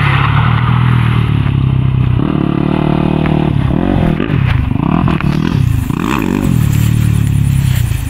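Yamaha YZ250 two-stroke motocross bike's engine revving up and falling back again and again as the bike rides across a wet dirt track.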